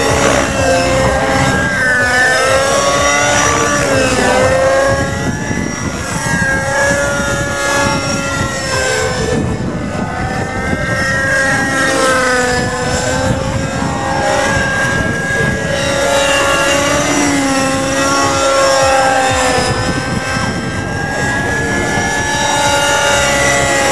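An Align T-Rex 600N nitro RC helicopter flying 3D aerobatics. Its glow engine and rotor keep whining up and down in pitch as the load changes through the manoeuvres.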